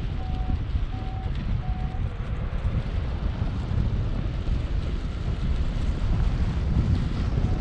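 Wind rushing over the microphone in paraglider flight. In the first two seconds a variometer gives three short beeps, evenly spaced about three quarters of a second apart, a sign of climbing in lift.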